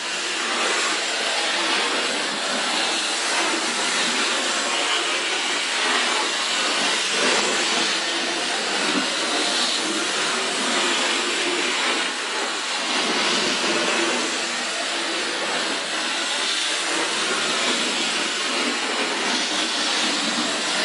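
Hornby O gauge Schools Class model steam locomotive running steadily around the track under 12-volt control: a continuous whirring, rumbling noise from its motor and wheels on the rails, with a faint thud about every six seconds.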